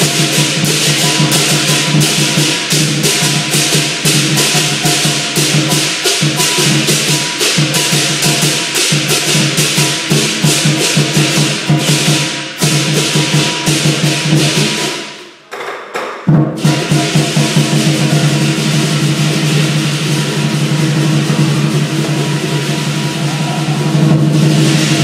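Chinese lion dance percussion: a lion dance drum beaten in a fast, steady rhythm with clashing cymbals. It almost stops about fifteen seconds in, then starts again a second later.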